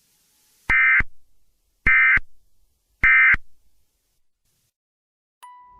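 Three short bursts of EAS-style digital header tones, about a second apart, each trailing off in a short echo. A steady single-pitch alert tone starts near the end.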